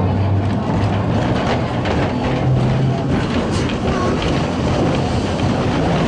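Heritage street tram running, heard from on board: a steady rumble and rattle over a low motor hum, with scattered clicks from the wheels on the track.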